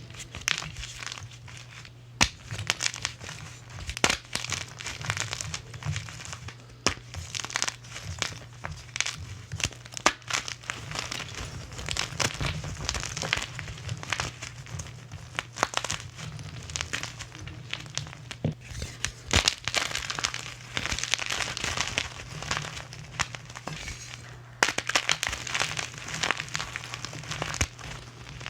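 Crunching and crinkling: a dense, continuous run of crackles with frequent sharp snaps, over a steady low hum.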